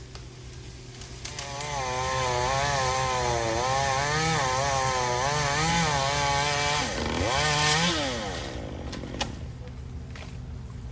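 Chainsaw revving up and cutting into pecan wood, its engine pitch wavering up and down under load. The revs dip sharply about seven seconds in, rise once more, then drop back to a low idle.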